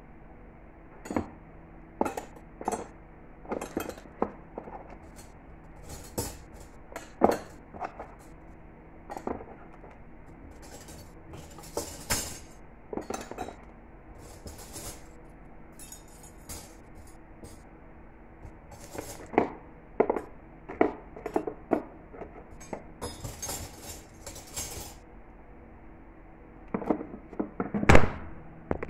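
Stainless steel cutlery clinking as spoons and forks are set one by one into the tray of a cutlery case, in irregular short clinks with a louder knock near the end.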